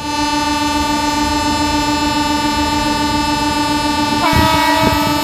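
Electric locomotive's air horn sounding one long, steady blast. About four seconds in the chord shifts and extra notes join, with a few low knocks under it.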